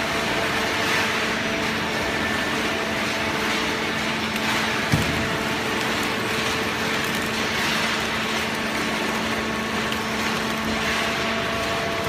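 Automatic horizontal cardboard baler and its feed conveyor running: a steady machine hum with a few held tones, and a single knock about five seconds in.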